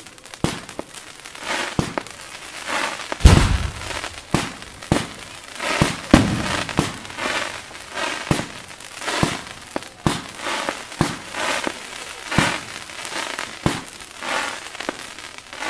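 Fireworks display: a steady run of launches and shell bursts, about one or two bangs a second, with crackling between them. The loudest and deepest bang comes about three seconds in.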